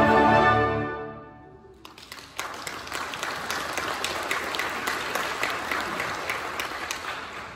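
The final held chord of a church choir and orchestra with brass, fading out in the first second or so, followed by the congregation applauding from about two seconds in until the applause dies away near the end.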